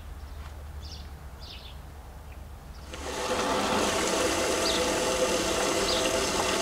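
Water from a garden hose nozzle starts pouring into the funnel and downpipe of a blue plastic rain barrel about three seconds in, then rushes steadily as the barrel fills. Faint short high chirps come now and then.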